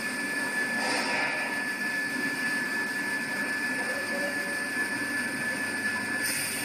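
Steady machine hum and hiss with a constant high whine from a high-frequency PVC welding machine, its press head clamped down on a PVC sheet. A brighter hiss comes in near the end.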